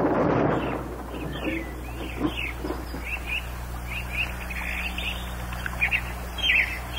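The rumble of a falling tree's crash dies away in the first second, then birds chirp in short, falling chirps, scattered and overlapping.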